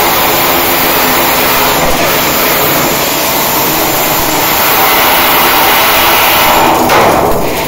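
Flux-cored arc welding: the welding arc running with a loud, steady hiss that falters briefly near the end.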